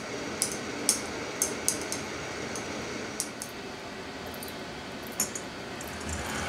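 Light glass clinks, about seven in the first few seconds and one more later, from a stirring paddle tapping the glass upper chamber of a Hario siphon coffee maker heated over an alcohol lamp, over a steady background hiss. A soft low rumble rises near the end.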